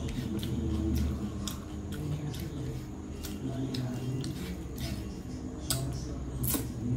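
Close-up eating sounds: wet chewing and lip-smacking clicks, with fingers working curry-soaked rice on a plate, scattered irregularly, two sharper clicks near the end.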